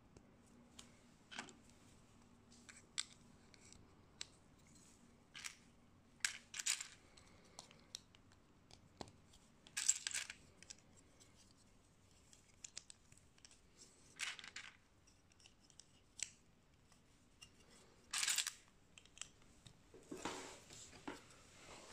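Small plastic Lego-compatible building bricks being handled and pressed together: irregular light clicks and snaps, with a few short scraping rattles.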